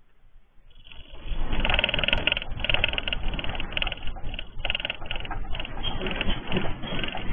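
Rooftop terrace shaking in a magnitude 6.4 earthquake: a rumble with dense rattling and clattering that breaks in suddenly about a second in and stays loud and jittery. It is heard through a security camera's microphone.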